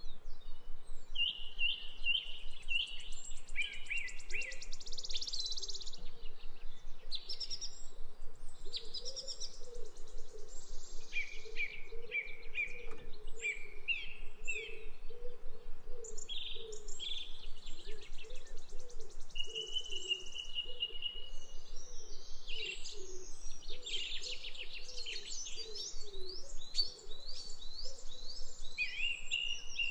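Forest birds chirping and trilling, many short high calls overlapping, with a lower call repeating about twice a second underneath for most of the time.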